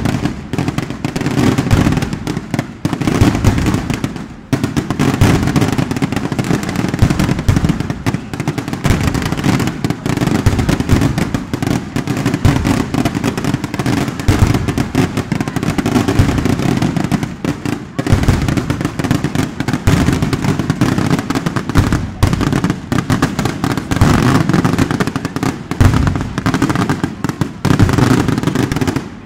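A long, dense barrage of firecrackers going off in rapid succession: a continuous loud crackle of bangs, easing briefly about four seconds in and again around eighteen seconds.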